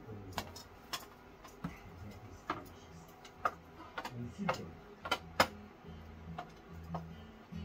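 Light, irregular clinks and clicks of utensils against plates and dishes, about one a second, over a low hum.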